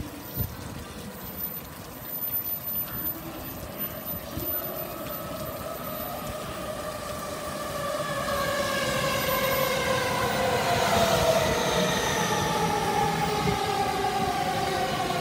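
Yamanote Line E231-series electric commuter train arriving, its motors whining in several tones that fall steadily in pitch as it slows. It grows louder from about eight seconds in.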